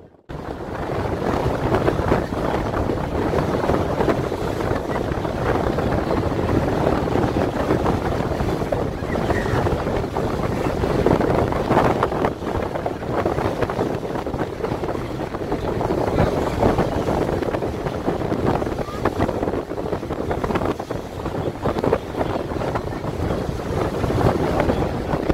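Wind buffeting the microphone over the steady rumble and water wash of a tour boat under way on choppy water.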